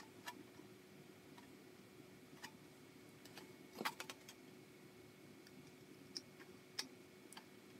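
Old Midwest tin snips cutting a notch into thin aluminium sheet: a few faint, sharp snips and clicks, with the loudest cluster about four seconds in.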